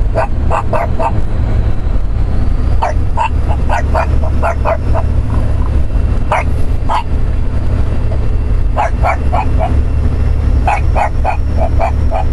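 A small black flat-faced dog barking in quick runs of short, sharp barks, with pauses between the runs. Under it, inside the truck cab, is a steady low rumble from the truck.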